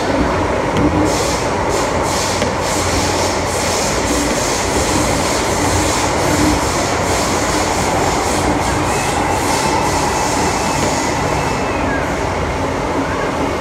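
Hong Kong MTR M-Train running through a tunnel, heard from inside the car: a steady, loud rumble of wheels and running gear with a run of light clicks from the track.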